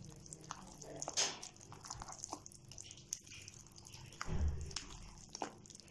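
Spatula stirring a thick, wet batter of yogurt, oil, eggs and flour in a glass bowl: irregular squelching strokes and small clicks against the glass, with a louder low thump about four seconds in.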